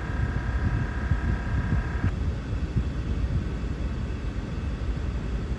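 A railroad locomotive air horn holding a steady multi-note chord, which cuts off about two seconds in, over a continuous low rumble.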